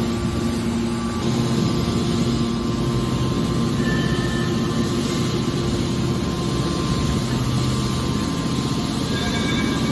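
Hydraulic scrap metal baler shear running, a steady loud mechanical drone with a low hum from its hydraulic power unit.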